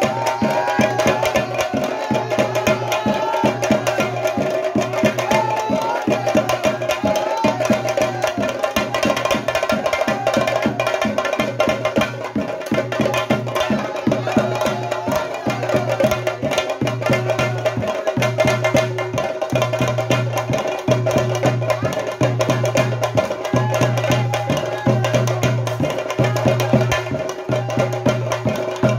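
Theyyam ritual percussion: chenda drums beaten fast and without a break, with a wavering melody line above the drumming, clearest in the first several seconds.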